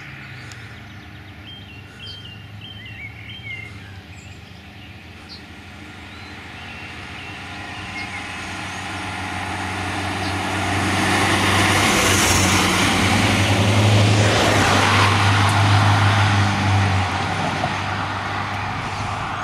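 A Volkswagen light fire engine and the vehicles behind it drive past on a road. Engine and tyre noise build as they approach, are loudest from about eleven to seventeen seconds in, then ease off as they pull away.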